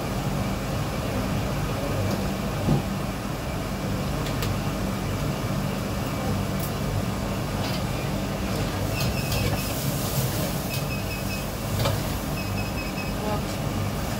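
Steady low machine hum, with a few sharp clicks and clinks. In the second half come several short, high dotted tones.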